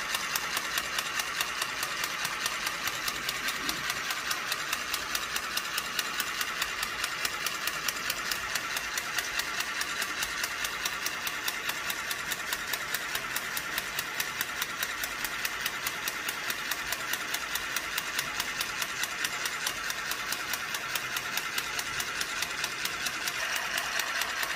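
Handheld electric mini sewing machine running and stitching through fabric: a steady motor whir with even, rhythmic clicking of the needle mechanism, about four clicks a second.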